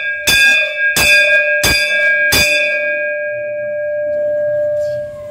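A temple bell struck four times in quick succession, about 0.7 s apart, its ringing tone hanging on and slowly fading after the last strike.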